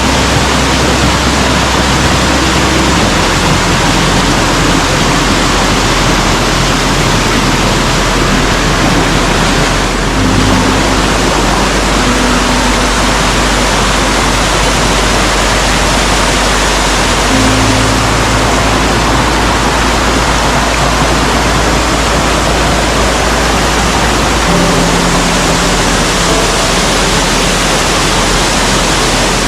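Waterfall rushing in a steady, loud roar of falling water. Soft held low music notes sound faintly beneath it, changing every few seconds.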